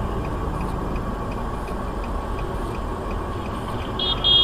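Steady engine and cabin noise from a car standing still, with faint, evenly spaced ticking. Two short high-pitched beeps sound near the end.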